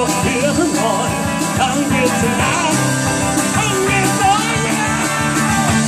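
Live rock band playing amplified electric guitars, bass guitar and drums, with a lead line that bends and slides in pitch over the steady band.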